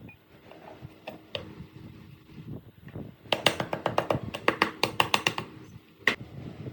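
Sharp clicks or taps: a few single ones, then a rapid run of about seven a second for two seconds, then one more near the end.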